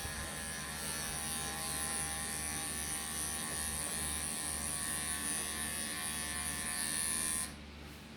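Electric grooming clippers running steadily as they clip the matted coat off a long-haired cat, cutting off abruptly near the end.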